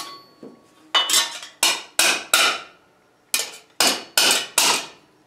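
Mallet blows on a steel vambrace held over a mandrel stake in an anvil, forcing the sheet into its curved forearm shape. The blows are sharp and ring briefly, coming about three a second in two runs with a short pause near the middle.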